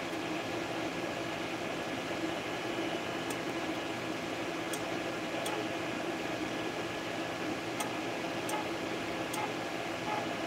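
FDM 3D printer printing: a steady whir from its print-head cooling fans and stepper motors, with a few faint high ticks.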